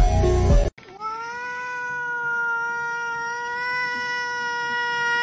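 A black-and-white cat gives one long, unbroken meow that starts about a second in, its pitch rising briefly and then held steady. Music plays for the first moment and cuts off just before it.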